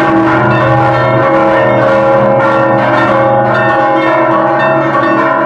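Several church bells ringing a repique: quick successive strikes piling up over the bells' long ringing tones.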